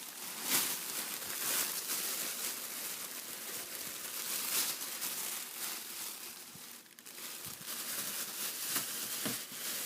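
Plastic packaging crinkling and rustling as it is handled, with a brief lull about seven seconds in.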